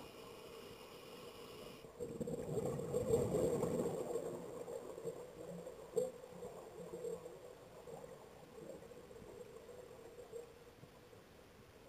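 Scuba diver's regulator breathing, heard underwater: a rush of exhaled bubbles about two seconds in that slowly dies away, with a single click about six seconds in.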